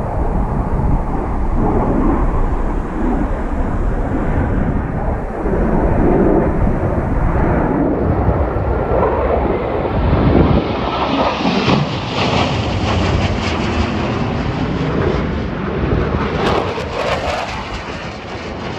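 Jet noise of Blue Angels F/A-18 Super Hornets flying past. A low rumble in the first half gives way, about eight seconds in, to a loud rushing roar that builds and then eases toward the end.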